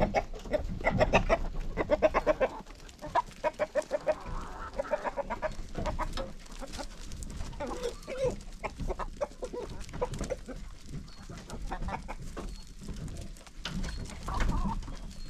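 Chickens clucking: a quick run of loud clucks over the first few seconds, then scattered calls, with another burst near the end.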